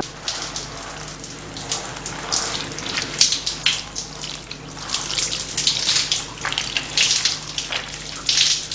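Water running and splashing irregularly, with a faint steady hum underneath.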